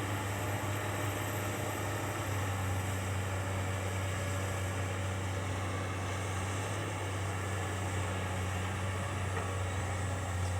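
A heavy machine's engine running steadily at an even speed: a low, constant drone that neither rises nor falls.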